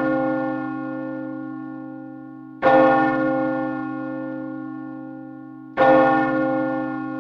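A bell tolling slowly: each stroke rings out and fades gradually, with fresh strokes about two and a half seconds in and again near six seconds in.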